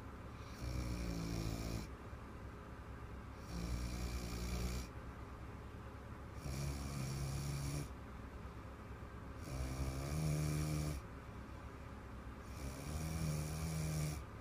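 A little girl snoring in her sleep: five long snores, each with a steady low hum, one about every three seconds, with quieter gaps between.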